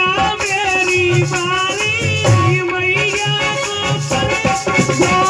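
Live Indian folk music with no words sung: a held, bending melody line over regular hand-drum beats and a steady shaker-like rattle.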